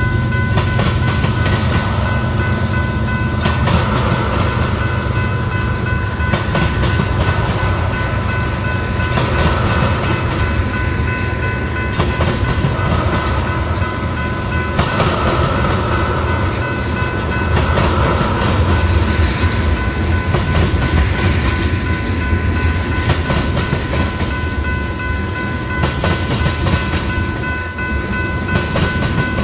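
Union Pacific freight train's tank cars rolling past at speed: a heavy, steady rumble with rapid clickety-clack as the wheels cross the rail joints and diamond crossing. A thin, steady high-pitched ringing tone sits over the noise throughout.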